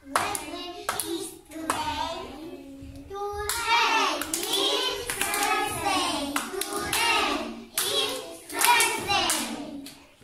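Young children singing a song together, with hand claps.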